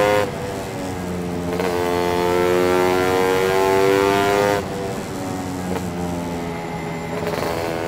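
Lambretta two-stroke single with a TS1 230 kit, running through a SIP Nordspeed exhaust and heard from the saddle while riding. The pitch climbs steadily under throttle for about four seconds, then the sound drops suddenly in loudness and the engine runs on more quietly.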